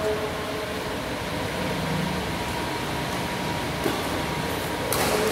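Badminton racket strikes on a shuttlecock in a doubles rally over steady background noise: faint clicks in the middle and one sharp, loud smack a little before the end.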